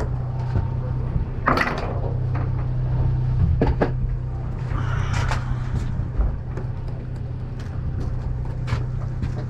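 Boat engine running steadily with a low hum, under scattered knocks and clicks from a tautog being handled on the deck.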